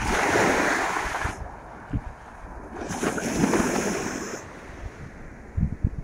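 Small sea waves washing up onto a sandy beach in two swells, one at the start and another about three seconds in, with wind gusting on the microphone near the end.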